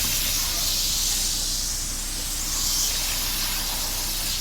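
Water spraying in a steady hiss, rinsing coil cleaner and yellow residue off an air conditioner. The hiss softens briefly about halfway through.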